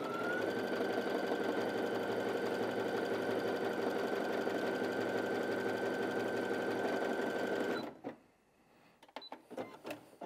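Brother Innov-is A65 computerised sewing machine stitching jersey fabric with a lightning stretch stitch. The motor settles at a steady speed within the first half second, with the rapid rhythm of the needle. It stops abruptly about eight seconds in, followed by a few light clicks.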